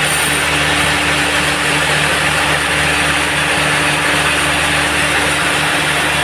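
Band sawmill running steadily: a constant motor hum under a dense, even rush of blade noise.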